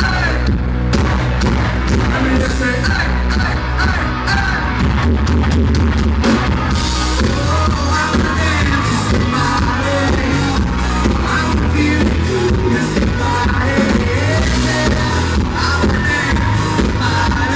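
Live country band playing loud, with a lead singer over drums, bass and guitar, heard through a poor, overloaded audience recording. The drums keep a steady beat, and the cymbals grow brighter about seven seconds in.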